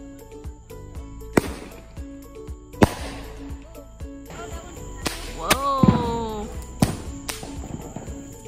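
Consumer fireworks going off: about five sharp cracks spread irregularly over several seconds, under background music.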